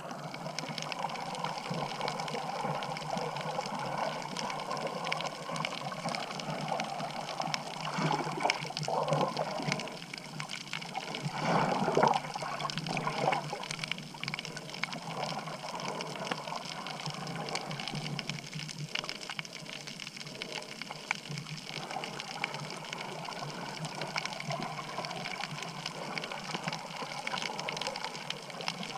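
Muffled, steady rushing and sloshing of water heard through an underwater camera's housing, with louder surges about eight seconds in and again around eleven to thirteen seconds in.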